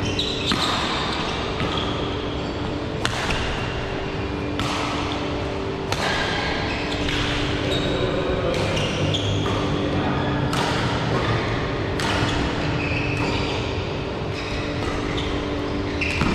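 Badminton rackets striking a shuttlecock in a rally, sharp hits every second or two, with short high squeaks of court shoes on the mat. Everything echoes in the large hall, over a steady low hum.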